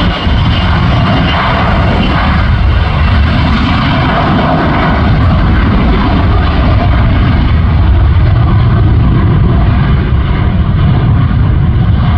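Loud, steady engine noise of a passing aircraft, with heavy low rumble; the high end slowly dulls as the plane moves off.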